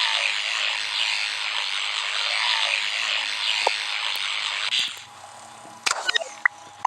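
Teeth being brushed with a toothbrush: a rhythmic scrubbing, stroke after stroke, that stops about five seconds in. A few light clicks and knocks follow.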